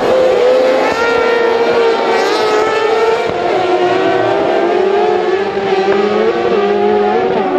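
A pack of crosscar buggies racing, several high-revving engines overlapping and rising and falling in pitch as they accelerate and lift off through the corners.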